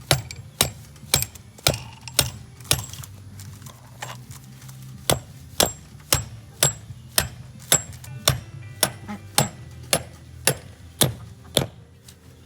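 Steady taps driving a carriage bolt through a metal wheel hub, about two strikes a second, pausing briefly once and stopping near the end.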